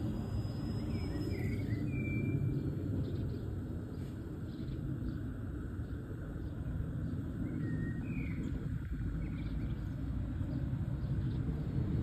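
Distant jet airliner passing high overhead: a steady low rumble. A few short bird chirps come about two seconds in and again near eight seconds.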